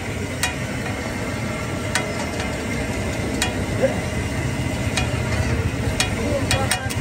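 Mutton liver frying on a tawa: a steady sizzle, broken by short sharp clicks every second or so as the food is stirred.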